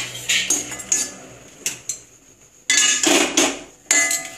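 A steel spoon scrapes and knocks against a dry kadai as red chillies and long peppers are stirred in it with no oil. There are a few sharp clicks, then a loud stretch of scraping about three seconds in, then more clinks with a ringing metal tone near the end.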